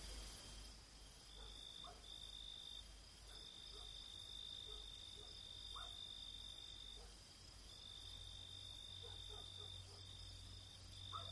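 Faint crickets trilling: long trills at one steady high pitch, broken by short gaps. A low hum comes in underneath about two-thirds of the way through.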